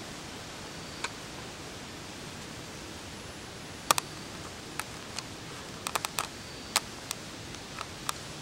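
Steady hiss, with a scatter of sharp little clicks: one about a second in, then a dozen or so between about four and eight seconds, the loudest near four seconds.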